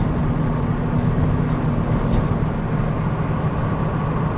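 Vehicle engine and road noise heard from inside the cab while driving, a steady low drone.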